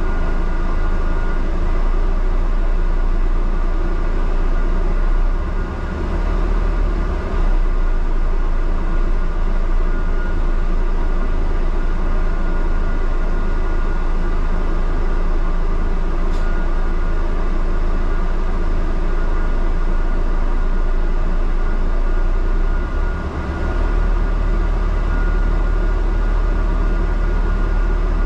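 Steady drone of a double-decker bus's engine and road noise heard from inside on the upper deck, with a strong low rumble and a faint steady high whine. The low rumble grows louder near the end.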